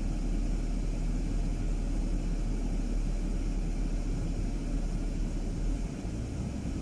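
A car on the move gives a steady low rumble of engine and tyre noise. The rumble eases off slightly near the end.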